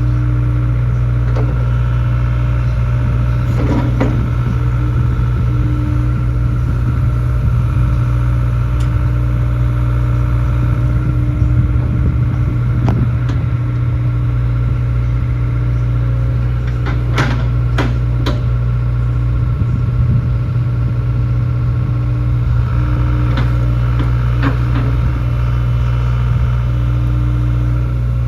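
Hitachi ZX85USB-6 compact excavator's diesel engine running steadily, with a handful of sharp metallic clanks from the machine scattered through.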